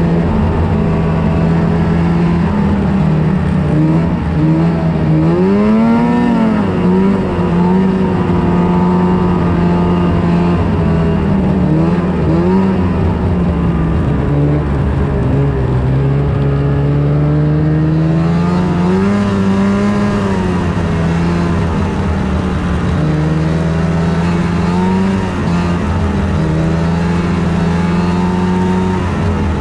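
Snowmobile engine running at trail speed, its pitch rising and falling as the throttle is worked, with a marked rise about six seconds in and another about twenty seconds in.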